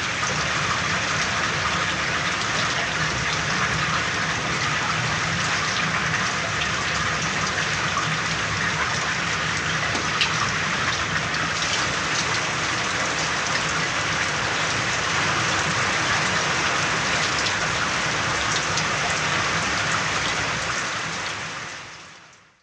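Steady heavy rain falling, a dense hiss of drops with a few sharper drop hits here and there. It fades away over the last couple of seconds.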